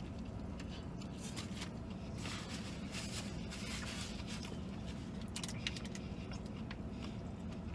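A man chewing a mouthful of spicy fried chicken sandwich, with small wet mouth clicks and soft rustling of a paper napkin and wrappers, over a steady low hum in the vehicle's cabin.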